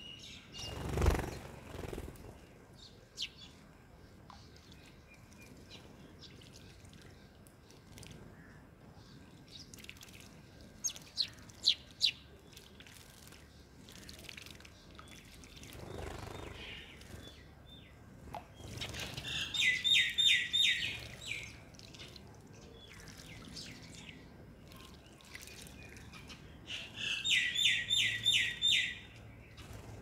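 House sparrows chirping in two quick runs of rapid, repeated chirps, the first about two-thirds of the way through and the second near the end. A dull thump comes about a second in, and a few sharp ticks fall around the middle.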